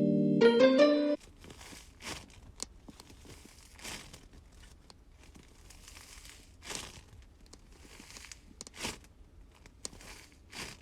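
Slime being squeezed and stretched by hand, with soft crinkling, sticky crackles and small sharp pops at irregular moments. A few keyboard notes cut off about a second in.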